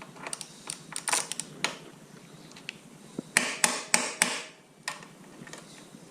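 Sharp metallic taps and clicks of a hex bit socket, hammer and ratchet being worked on a seized motorcycle rearset bolt. A few single clicks come first, then a quick cluster of louder knocks about three seconds in. The bolt's hex head is rounding off under the bit.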